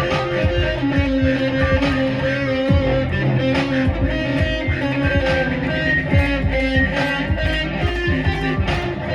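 Music: an electric guitar playing a melody over a bass-heavy electronic backing track with repeated deep kick drums.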